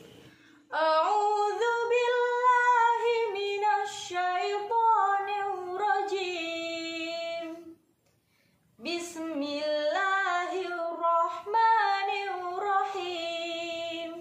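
A young woman's voice reciting the Qur'an in melodic tartil chant. There are two long phrases with drawn-out, gliding held notes, and a pause of about a second between them.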